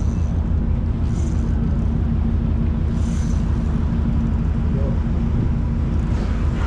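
A boat's engine running steadily: a low, even rumble with a hum.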